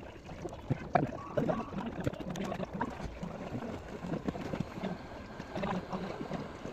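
Small irregular clicks and taps of tools and small parts being handled on a TV circuit board, over a steady background hiss.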